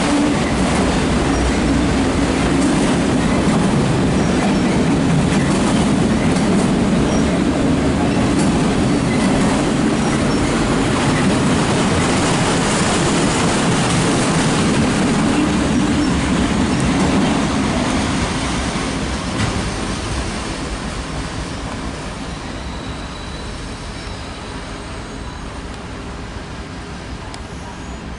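Loaded autorack freight cars rolling past on jointed track, a steady rumble and clatter of wheels on rail. The sound fades over the last third as the end of the train moves away.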